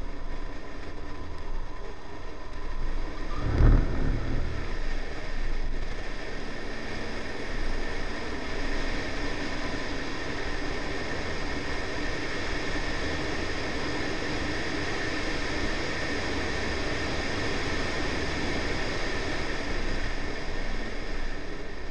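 Wind rushing over an outside-mounted camera on a Honda Civic at track speed, with tyre and road roar and the B18C4 four-cylinder engine underneath, its note slowly climbing as the car accelerates. A single low thump about four seconds in.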